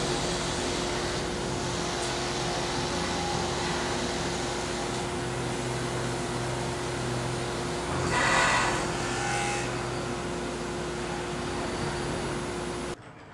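High-speed spindle on a multi-purpose woodworking machine running and boring into a wooden workpiece, a steady whirring hiss with dust-extraction suction under it. The cut gets louder about eight seconds in, and the sound cuts off suddenly just before the end.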